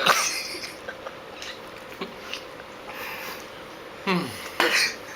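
A person chewing a hard, dry insect: faint crunches and mouth clicks, with a cough right at the start and a falling groan about four seconds in, followed by a short burst of breath.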